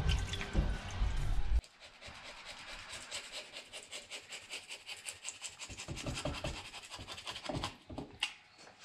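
A parts washer's low running noise stops abruptly about a second and a half in. Then a flat metal scraper scrapes old gasket off a Land Cruiser front steering knuckle flange in quick, faint, repeated strokes.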